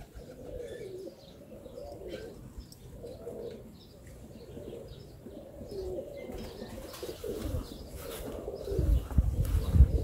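Domestic pigeons cooing over and over, a series of low wavering coos. Near the end, loud low rumbling thumps come in over the cooing.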